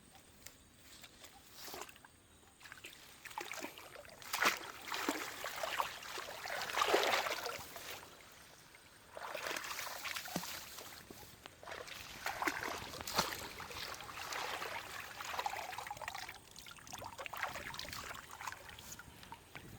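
Shallow water sloshing and splashing in irregular bursts, with small knocks mixed in, as someone moves and works by hand in it; there is a brief lull about eight seconds in.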